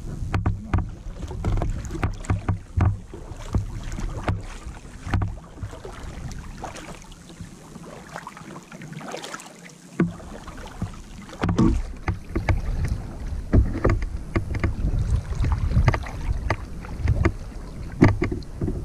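Double-bladed paddle working a canoe: water splashing and dripping off the blades, with irregular small knocks and taps. Under it runs a low wind rumble on the microphone that drops out for a couple of seconds around the middle.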